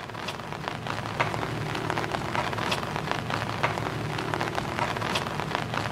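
Steady patter like heavy rain on a surface, with many irregular sharp ticks, swelling slightly over the first second.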